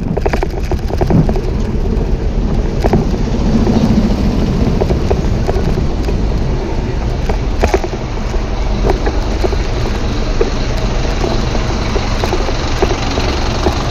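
Bicycle riding noise: steady wind rumble on the microphone and tyre noise, with scattered knocks and rattles from the bike going over bumps, and traffic passing.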